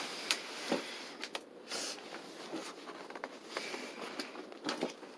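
Scissors slitting the packing tape along a cardboard box's flap, heard as brief scraping hisses mixed with short clicks and knocks of the cardboard being handled.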